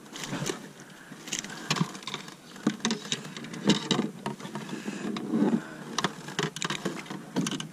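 Scattered sharp clicks, taps and light rustling at an irregular pace, from handling a freshly caught small fish and the weed-draped fishing line in a boat.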